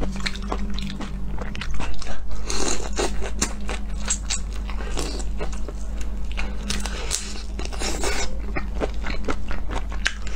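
Close-up eating of raw marinated shrimp: shells being pulled apart and bitten, with crunching and chewing in many quick, irregular clicks and crackles.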